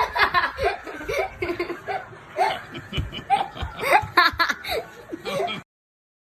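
Hearty laughter in repeated short bursts, cutting off suddenly near the end.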